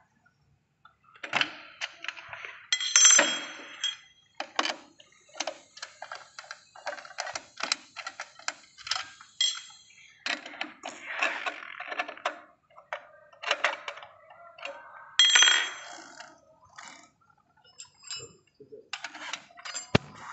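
Metal hand tools and scooter drive parts clinking and knocking in an irregular run, with two louder ringing metallic clanks about three seconds in and again about fifteen seconds in, as the chain and sprocket are fitted.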